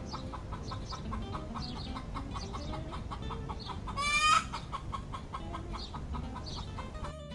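Hen clucking sound effect, a steady run of quick clucks with one loud rising squawk about four seconds in.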